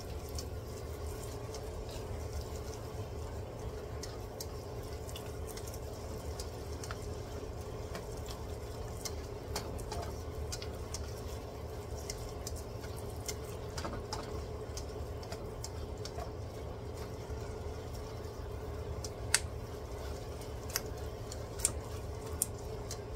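Diced onion, garlic and ginger sizzling steadily in butter and oil in a wok, with scattered small crackles and a few louder clicks near the end.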